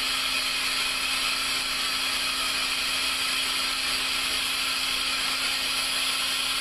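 Air compressor running steadily to draw the vacuum that holds the bowl on a lathe vacuum chuck: an even hiss with a steady low hum.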